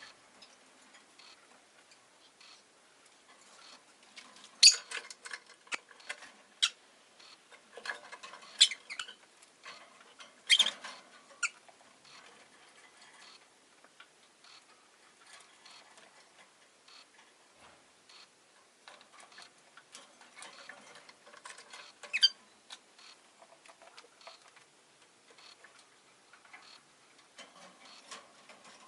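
Peach-faced lovebird making a few short, sharp chirps, the loudest clustered in the first half and one more about 22 seconds in, among faint clicking and scratching.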